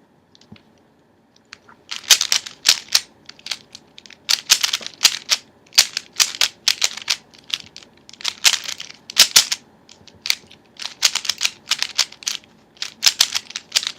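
Plastic speed cube being turned quickly, its layers clicking and clacking in rapid irregular runs of turns that start about two seconds in.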